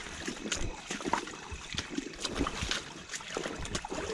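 Shallow rocky stream water splashing and trickling as someone wades through it and works a hand net in the water, with many short splashes and knocks throughout.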